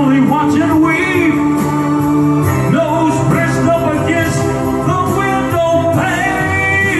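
Male singer performing a dramatic ballad live into a handheld microphone over sustained backing music; his voice swells near the end.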